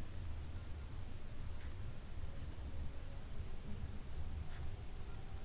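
A cricket chirping steadily in the background, a high pulsing trill of about ten pulses a second, over a low hum.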